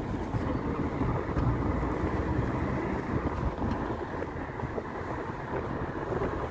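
Steady low rumble of tyre and engine noise from a car driving slowly along a town street, heard from the moving car.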